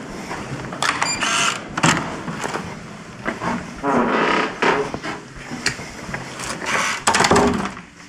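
A hotel room door being unlocked and opened: an irregular run of clicks, knocks and rattles from the lock and door, with louder knocks about two seconds in and again near the end.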